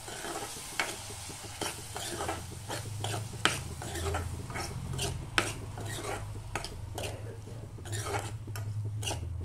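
A spoon stirring and scraping chopped tomatoes and spices frying in oil in a kadhai, with repeated clicks and scrapes of the spoon against the pan, over a steady low hum. This is the masala being roasted (bhuna).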